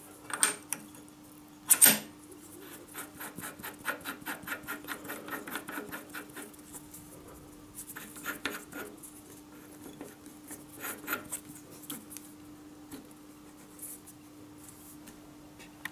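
Steel end mill and fixture parts handled and fitted together on a milling-machine table: sharp metallic clicks and taps, the loudest about two seconds in, with a quick run of small ticks from about three to seven seconds, over a faint steady hum.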